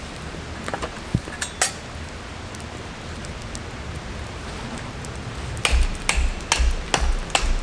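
Steady hiss of rain with a few light clicks. About five and a half seconds in, a regular series of sharp knocks starts, each with a dull thud, about two to three a second.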